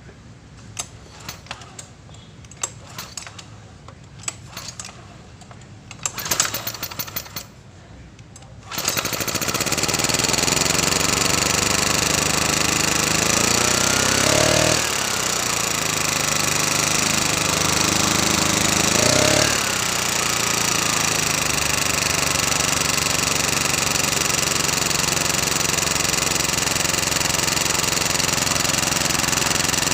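Honda portable generator's small engine catching suddenly about a third of the way in, after some light clicks and knocks, then running steadily. Its pitch climbs and drops back sharply twice.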